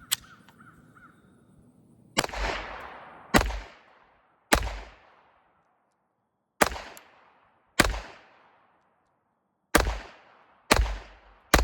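Taurus TX22 .22 LR pistol firing Winchester white box rounds: about seven single shots at an uneven pace, one to two seconds apart, each with a short echo.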